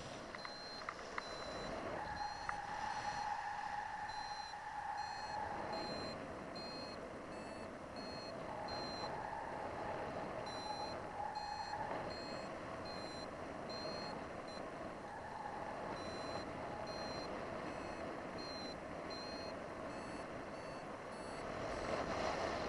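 Paragliding variometer beeping: short, high-pitched beeps of nearly the same pitch, a few a second in uneven runs, over a steady rush of wind. The beeping is the vario's climb tone, the sign that the glider is in rising air.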